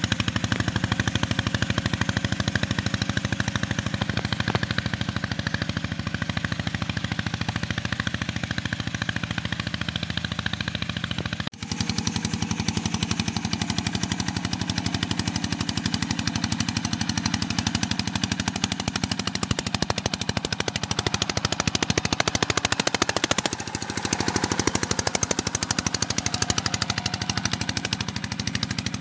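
Walk-behind two-wheel tractor's engine running under load as it pulls a disc plough through the soil, a fast, even popping beat from the exhaust. The sound drops out for an instant about a third of the way through and changes in tone again about four fifths of the way in.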